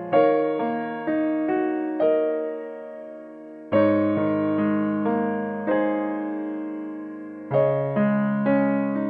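Background music: a soft piano piece, notes struck one after another and left to ring out, with a fresh chord twice.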